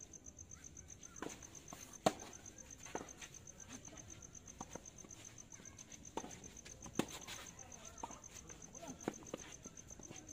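Tennis balls struck by rackets in a doubles rally, a sharp pop every second or two, the loudest about two seconds in and another near seven seconds. Under it, crickets chirp in a steady, evenly pulsed trill.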